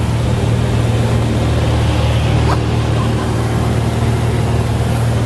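A light airplane's engine and propeller droning steadily at a constant pitch, heard from inside the cabin in flight.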